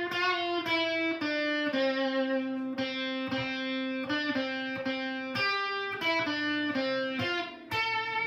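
Electric guitar playing a slow single-note melody, each note plucked and left to ring.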